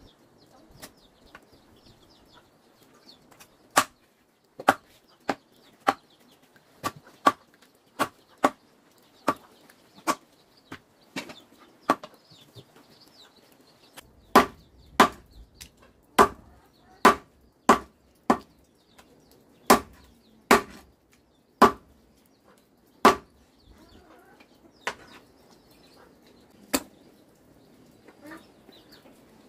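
A blade chopping into wood, one sharp strike at a time, irregular and roughly one a second. There is a short pause about twelve seconds in, and the hardest strikes come in the middle stretch.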